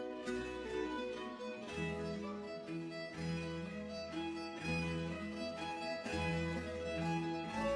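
Background music: bowed strings with cello, notes changing in a steady rhythm.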